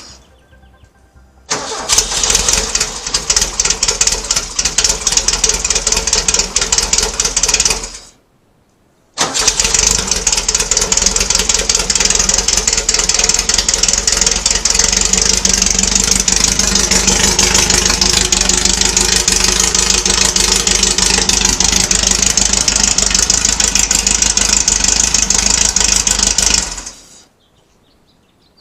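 A 2332cc VW air-cooled flat-four stroker engine starting and running after a top-end repair with freshly adjusted valves. It runs in two stretches, stopping abruptly about eight seconds in and again near the end.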